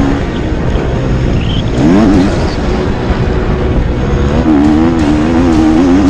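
Motocross bike engine under racing throttle. The revs climb sharply about two seconds in, then hold high and wavering near the end, over heavy wind rumble on the helmet-mounted camera.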